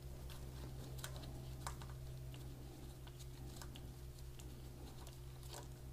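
Scattered light metal clicks of a 5 mm Allen key turning out a swing arm cover bolt, over a steady low hum.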